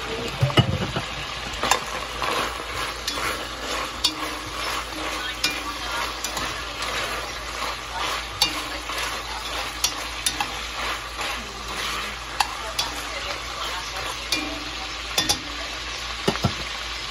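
Beef and bacon chunks sizzling as they brown in an enameled pot, stirred and turned with metal tongs that click and scrape against the pot many times.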